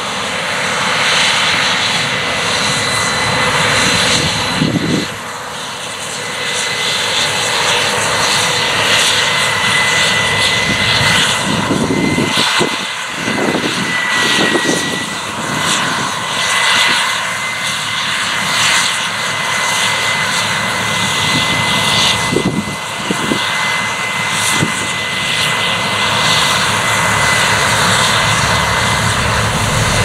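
Case IH 9120 combine harvester running under load as it cuts and threshes wheat: a steady, dense machine sound of diesel engine, threshing rotor and header, with a thin high whine held throughout.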